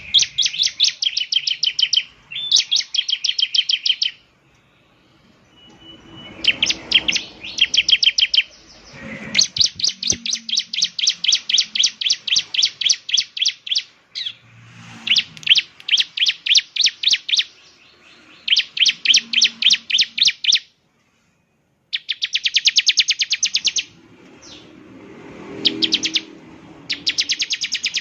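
Bar-winged prinia (ciblek) singing in bursts of rapid, evenly repeated high chip notes, about eight a second. Each burst lasts two to four seconds, with short pauses between.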